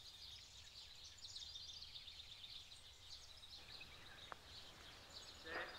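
Near silence: faint birds chirping steadily, with a single faint click about four seconds in.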